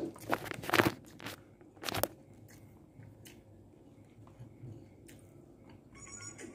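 Close-up crunching and chewing of crunchy food: a few loud crunches within the first two seconds, then quieter small crunches.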